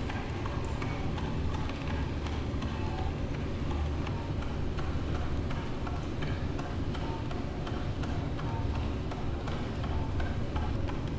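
Hurom vertical slow-press juicer running with a steady low hum as chopped fruit pieces are fed into its chute, with frequent irregular clicks and taps as the auger crushes them.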